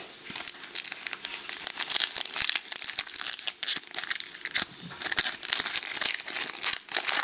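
Foil trading-card pack wrapper crinkling and tearing as it is opened and handled, in a quick irregular crackle.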